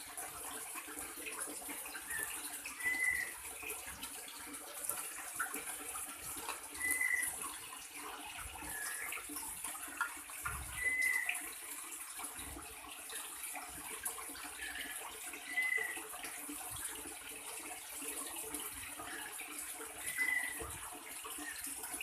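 A bird's short whistled note, repeated about every four seconds over a steady high hiss.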